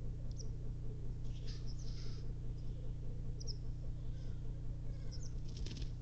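Black grouse cocks lekking: a continuous low bubbling chorus, with short hissing calls breaking over it about a second in and again near the end.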